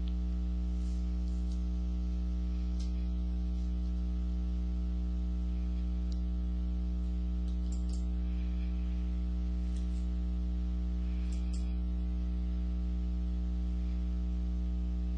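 Steady electrical mains hum with a stack of overtones, picked up in the recording chain, with a few faint clicks scattered through, some in quick pairs.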